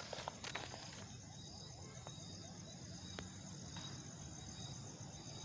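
Crickets chirping in a steady, faint, high-pitched trill, with a few sharp clicks about a second in.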